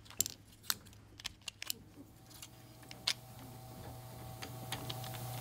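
Small sharp clicks of metal printing type being handled and set in a letterpress bed, then, about two seconds in, a letterpress printing press starts running with a steady mechanical hum that grows louder.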